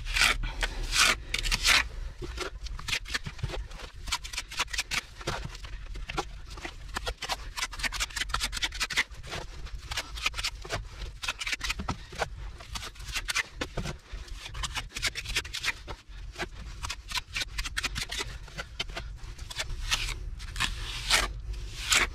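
Mason's trowel scraping mortar into a deep open joint in a concrete block foundation wall, forcing it in with many short, irregular strokes.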